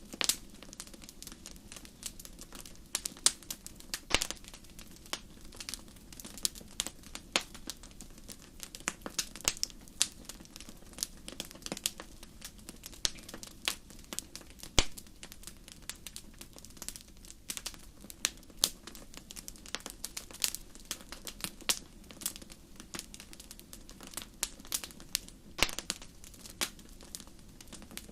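Wood fire crackling in a fireplace: irregular sharp pops and snaps, several a second, over a low steady hiss of burning.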